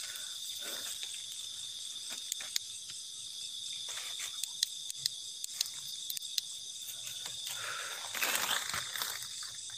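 Night insects, crickets among them, chirring steadily on one high pitch, with scattered sharp clicks and a brief rustle of movement through undergrowth about eight seconds in.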